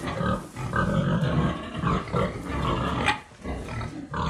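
Pigs grunting, a string of low, rough grunts with short gaps between them.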